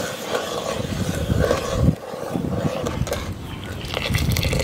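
Steel ladle stirring hot milk in an aluminium pot, with a ladleful of milk poured back into the pot near the end.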